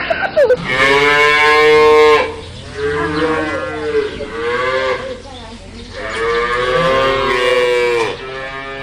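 Cow mooing: a long moo, a few shorter ones, then another long moo.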